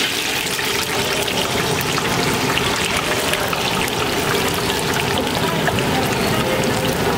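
Battered green chillies (mirchi bajji) deep-frying in a large iron kadai of hot oil: a steady, dense sizzle with fine crackling, as a perforated skimmer stirs them through the oil.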